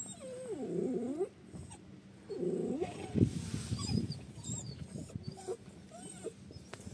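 An animal giving two short pitched cries that rise and fall, followed about three seconds in by a sharp knock and a brief rush of noise.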